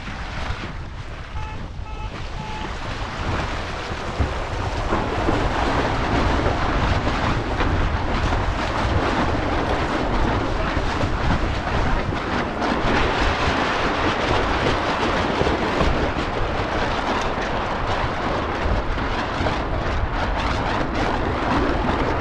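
Wind buffeting the microphone and water rushing along the hull of a Lightning-class sailboat under way, growing louder about three seconds in and then holding steady.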